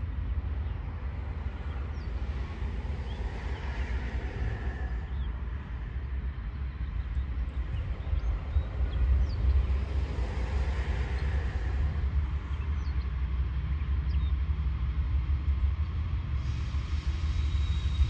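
Low, steady rumble of a Norfolk Southern diesel freight locomotive approaching from a distance, with a few bird chirps over it. The noise grows brighter near the end as the train draws closer.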